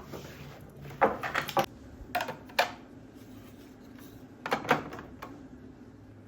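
Sharp knocks and clacks of household things being handled, in three short clusters of a few hits each.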